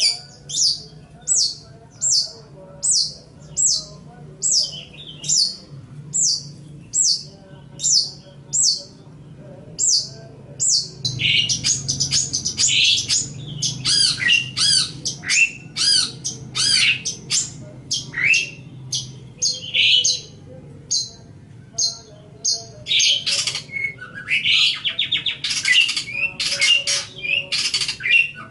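Long-tailed shrike (cendet) singing. A run of short, clear, down-slurred notes comes about two a second, then after about ten seconds it breaks into fast, dense chattering mixed with harsh, scratchy notes.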